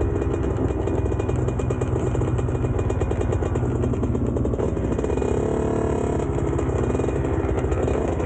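Two-stroke dirt bike engines running at low revs, with a fast, even pulsing. The pitch swells briefly about five seconds in, as if one bike is given a little throttle.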